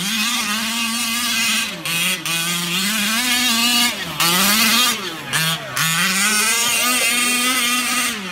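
Small two-stroke gas engine of a Losi Mini WRC 1/5-scale RC rally car, revving high and easing off over and over as the car is driven hard across a dirt track. The pitch drops sharply about two seconds in and twice more in the middle, then climbs back each time.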